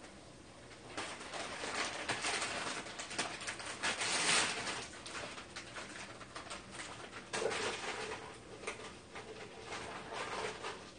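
Plastic packaging crinkling and rustling in irregular bursts as packets of fresh udon noodles are handled, starting about a second in and loudest about four seconds in.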